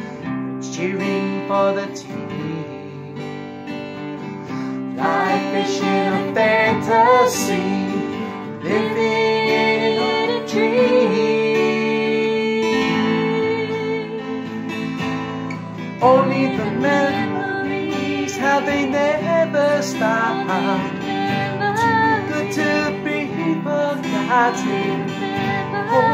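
Two acoustic guitars strummed while a man and a woman sing a song together, the voices growing fuller a few seconds in.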